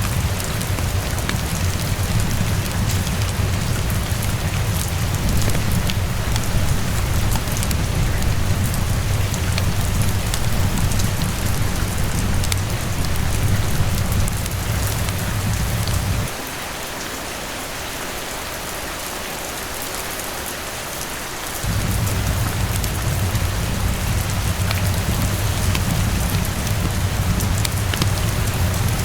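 Steady rainfall pattering on a surface, with scattered small drop ticks. A low rumble runs beneath the rain, cuts out for about five seconds past the middle, then comes back.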